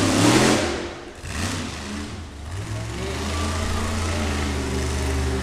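Monster truck engine revving hard, falling away about a second in, then building back up to a steady run as the truck drives around the dirt.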